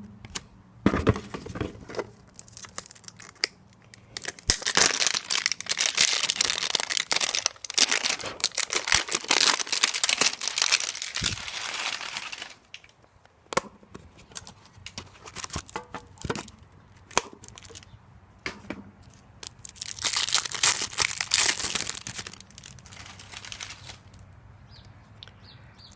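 A card pack's wrapper being torn open and crinkled, in two long spells of crackling, with scattered clicks and taps between them.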